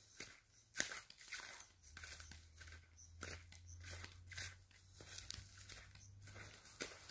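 Faint, irregular crunching steps on dry grass and soil, with a low rumble underneath; the loudest crunch comes about a second in.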